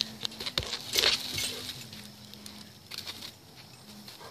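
A dog getting down off a plastic barrel in its pen: a few sharp clicks and clinks of claws and a collar tag, over a faint steady low hum.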